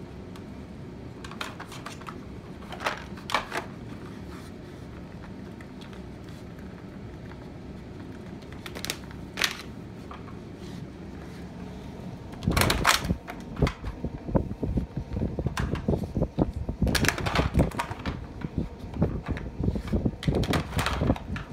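Dogs working plastic puzzle feeder toys with their noses and paws, the plastic parts clicking and clacking. A few separate clicks at first, then from about halfway through a busy, continuous clatter.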